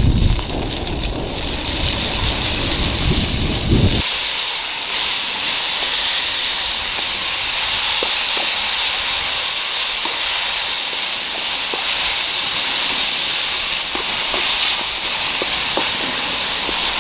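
Sliced bell peppers and onions sizzling in hot olive oil in a skillet over a campfire, a steady loud hiss, with a few light clicks of a spatula in the pan. Wind rumbles on the microphone for about the first four seconds.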